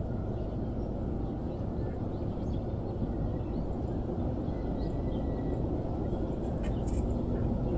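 Steady low outdoor background rumble, with a few faint high chirps and some light clicks near the end.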